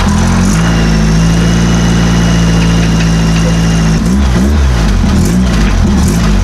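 Ford Model A coupe's engine idling steadily just after being started. About four seconds in, its note begins to rise and fall.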